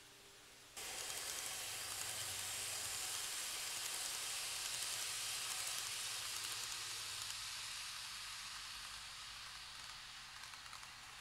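N-gauge model train running on the layout track: a steady hissing rolling noise with a low motor hum. It cuts in suddenly about a second in and slowly fades after the middle, with light clicks near the end.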